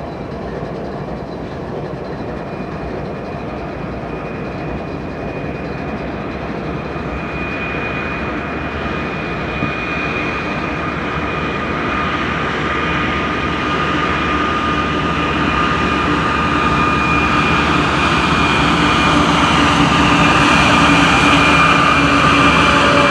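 BNSF freight train's diesel locomotives approaching and passing, growing steadily louder, with a steady high whine over the rumble from about eight seconds in. Near the end the double-stack container cars roll by.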